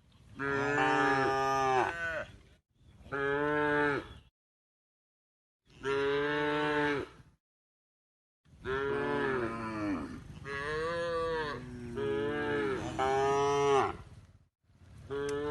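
A cow mooing over and over: about seven drawn-out calls of one to two seconds each, some running straight into the next, with short silent pauses between.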